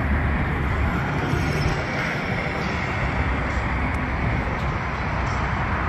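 Gasoline rushing from a fuel pump nozzle into a vehicle's tank as it is filled: a steady noise with a low rumble underneath.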